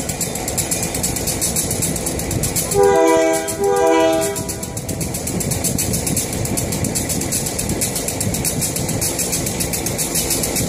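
Locomotive air horn sounding two short blasts, each under a second, about three seconds in, over a steady idling engine rumble.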